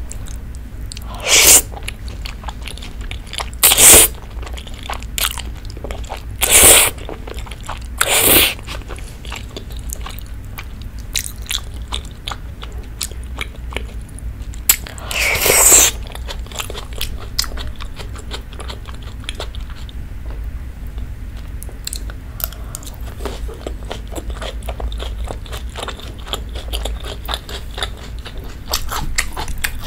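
Close-miked mukbang eating sounds: spaghetti in creamy rose sauce slurped up in five loud bursts, with many small wet chewing clicks in between.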